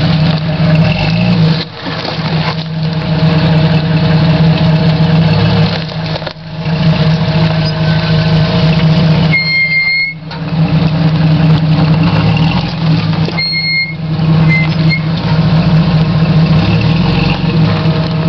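Lifted Jeep Cherokee XJ's engine running at low speed as the SUV crawls over rocks. There are two short high chirps about halfway through and a few seconds later.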